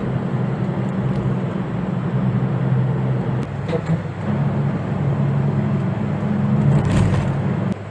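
Camper van's engine running under way with tyre and road noise, heard from inside the cab; the engine note steps up about halfway through and the noise is loudest near the end.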